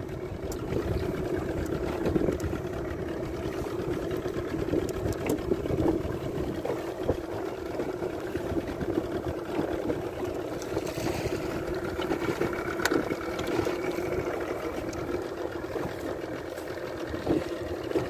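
Small fishing boat's engine idling, a steady hum with a few light knocks over it.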